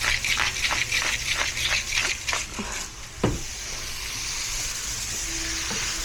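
Beef frying in a pan, stirred with a spatula in quick repeated strokes, about five a second, over the sizzle. About three seconds in there is a single knock, and after it the pan sizzles steadily.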